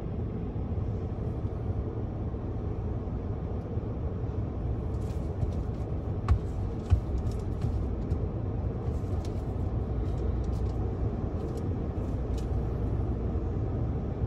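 Steady low rumble of a Ford F-150 idling, heard from inside its cab, with scattered light clicks and two sharper knocks about halfway through.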